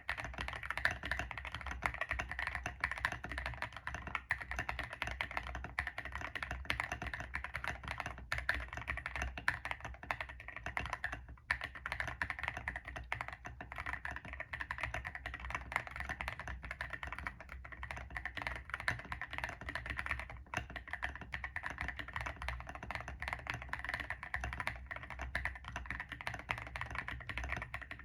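Continuous fast typing on a mechanical keyboard with stock WS Morandi linear switches and MDA-profile keycaps, built with a gummy O-ring mount, tape mod and silicone and Polyfil dampening: a dense run of keystrokes with a brief pause about eleven seconds in.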